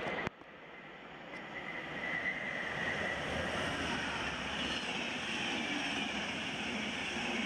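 A locomotive-hauled passenger train passing through at speed. The rushing noise of its wheels on the rails builds over the first couple of seconds, then holds steady as the coaches stream past.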